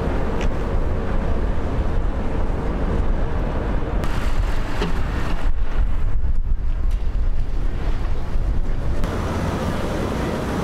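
Storm wind buffeting the microphone outdoors: a loud, continuous rush, heaviest in the low end. It shifts in character about nine seconds in.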